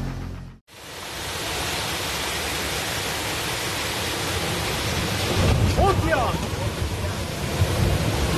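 Storm noise: a loud, steady rush of heavy rain and wind. About six seconds in come a few short cries that rise and fall in pitch.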